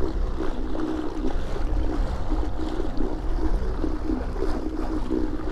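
Small fishing boat's outboard motor running steadily under way across the lake, a wavering hum over wind and water noise.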